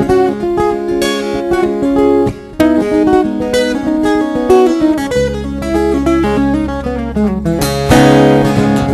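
Two steel-string acoustic guitars played together: a picked melody over chords. A deep low note comes in about five seconds in and rings on under the melody, and a bright full strum comes near the end.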